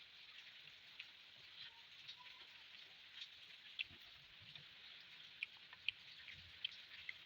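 Faint wet clicks and smacks of someone eating rice and fish curry, a few sharp ones standing out, over a steady hiss.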